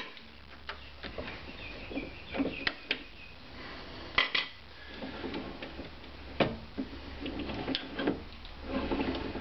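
Steel spanners clinking and clicking as they come off the drill press's quill-spring lock nuts and are handled: scattered, irregular metallic clinks, the loudest a pair about four seconds in and another near six and a half seconds.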